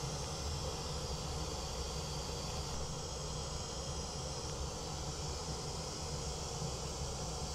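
Pink noise from a speaker system, heard through Shure SE215 in-ear monitors fitted in a binaural dummy-head microphone: a steady, even hiss.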